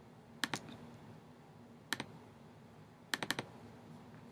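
A few sharp clicks on a computer keyboard: a pair about half a second in, one near two seconds, and a quick run of four a little after three seconds.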